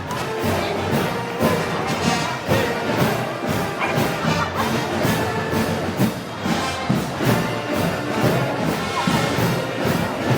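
Brass band music with a steady drum beat, played as festival band music.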